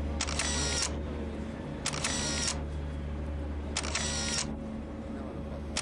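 Camera shutter and motorised film advance, firing and whirring about every two seconds, three times, over a steady low hum.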